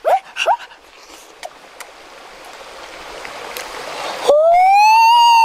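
Comedy sound effect: a hiss swells for a few seconds, then a loud pitched tone cuts in suddenly, slides up and holds. It is timed to an exaggerated look of surprise.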